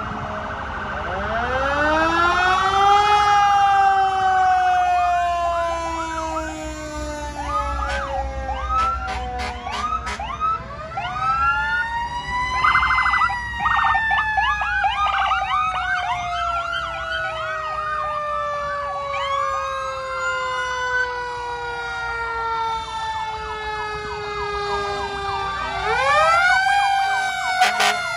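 Several fire truck sirens wailing at once, overlapping. Some climb slowly and then fall away over many seconds while shorter rising-and-falling wails repeat over them, above the low rumble of passing truck engines.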